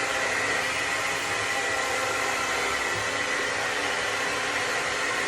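Electric hair dryer running steadily, a rush of blowing air with a steady high whine and a lower hum from its motor.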